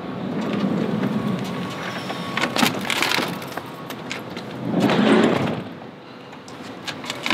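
A camper van's sliding side door unlatches with clicks and rolls open about three seconds in. About five seconds in it slides shut, the loudest sound.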